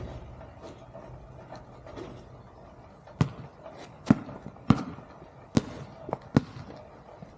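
Basketball bouncing on the court: about six sharp thuds at uneven spacing in the second half, the last few coming closer together.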